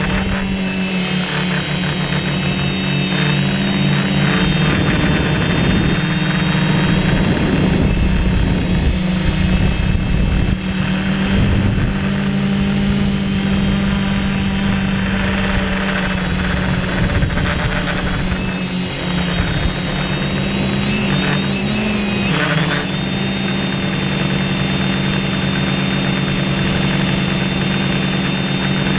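Multirotor drone's electric motors and propellers running in flight, a steady loud hum with a high whine over it, shifting briefly in pitch about three-quarters of the way through as the motors change speed.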